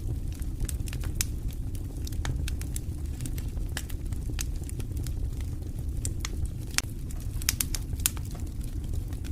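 Wood campfire burning and crackling, with sharp irregular pops over a steady low rumble.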